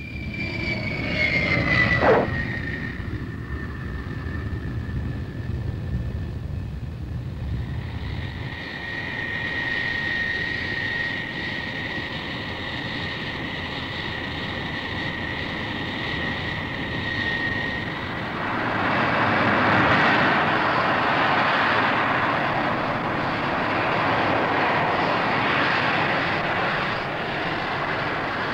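Jet engines of the F-111A, its two Pratt & Whitney TF30 afterburning turbofans. A falling whine plays in the first two seconds, with a sharp click about two seconds in. A steady high whine follows, and about 18 seconds in it gives way to a louder, fuller roar.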